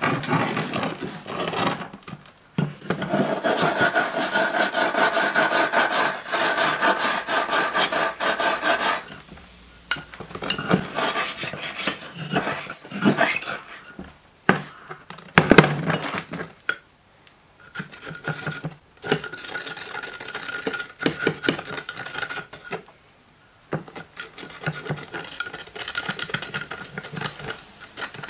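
Hand file rasping on a freshly cast aluminium part as it is cleaned up, in runs of quick back-and-forth strokes broken by short pauses.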